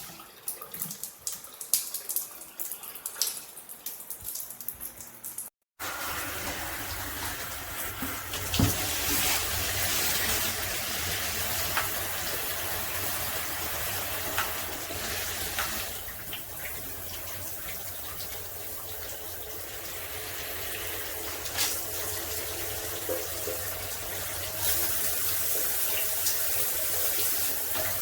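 Water spraying from a rainfall shower head with handheld spray combo, a steady hiss of falling water. For about the first five seconds it is quieter, with scattered taps and drips, and then the full spray runs steadily.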